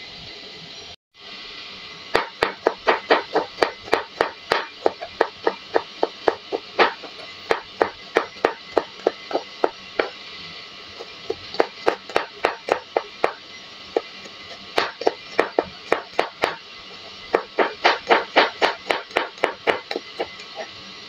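Kitchen knife slicing garlic cloves on a plastic cutting board: quick runs of sharp taps, about five a second, broken by short pauses, starting about two seconds in.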